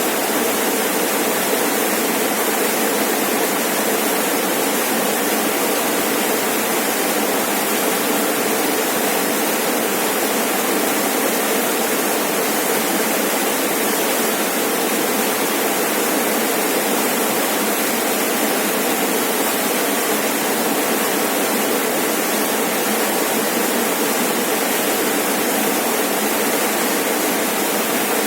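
Rainforest waterfall rushing: a steady, unbroken roar of falling water.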